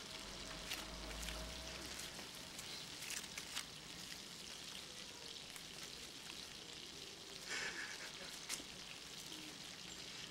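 Quiet background with a faint crackling hiss and a few soft clicks and rustles, a couple of them about 3 seconds in and another two near the end.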